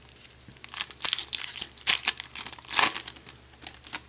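Foil wrapper of a 2012 Bowman baseball card pack being torn open and crinkled by hand: a run of crackling, with the loudest crinkles about two and three seconds in and a few small clicks near the end.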